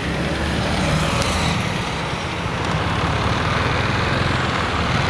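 Road traffic on a wet street in the rain: a vehicle engine running steadily under a constant hiss of tyres and rain.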